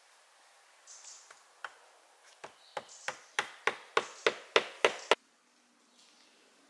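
A hand tool hammering on a vertical wooden slat of a log wall: a few light taps, then a rapid run of blows, about three a second, each louder than the last, that stops suddenly.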